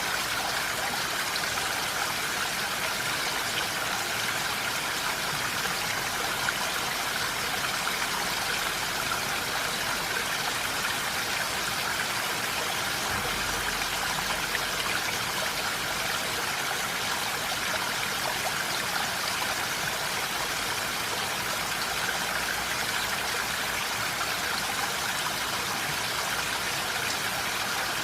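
Steady rain falling, an even wash of water sound without let-up.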